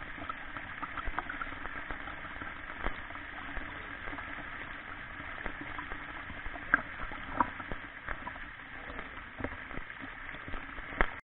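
Shallow stream water rippling and trickling over stones close to the microphone, with many small splashes and clicks scattered through the steady rush.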